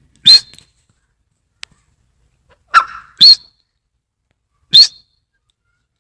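Francolin (teetar) calling: four short, sharp, loud calls, one near the start, a quick pair about three seconds in, and a last one near the end.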